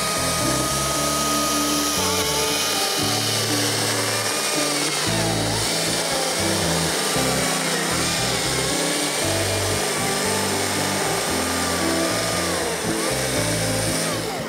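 Battery-powered Stihl chainsaw cutting through a log, its motor whine dipping and wavering as the chain bites into the wood, over background music.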